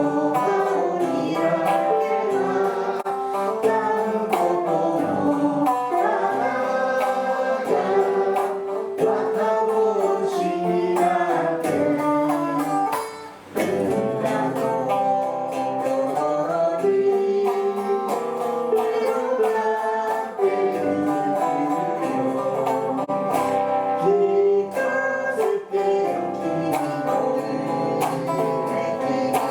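Rock song with guitar and singing, with a brief drop in level about halfway through.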